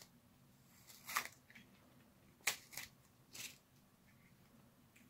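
Masking tape being peeled off the spray-painted plastic shell of a Nerf blaster, in four short, faint rips between about one and three and a half seconds in.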